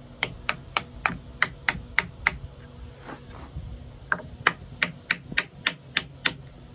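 Hammer tapping an ebony wedge down into the slot in the top of an ash axe handle, driving it in to spread the wood and lock the head on. Two quick runs of light strikes, about three to four a second, with a short pause between them.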